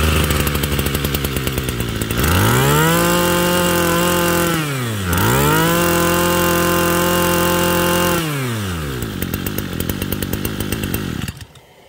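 HME23 23cc two-stroke brushcutter engine running on a test run: idling, revved up to high speed and held twice, dropping back to idle after each rev, then shut off about eleven seconds in.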